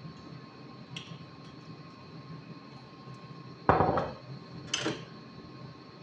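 A glass olive-oil bottle set down with a solid knock on a granite countertop, followed about a second later by a lighter clink, over a faint steady hum.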